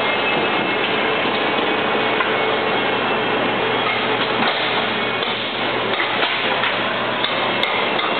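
Steady, loud factory-floor noise: a constant rushing hiss over a low hum from the plant's machinery, with a few light knocks and clicks in the second half.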